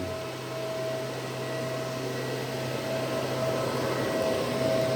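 Deutronic battery charger running under a continuous 50-amp load test: a steady whir of cooling fans with an electrical hum and a thin steady tone, growing slightly louder toward the end.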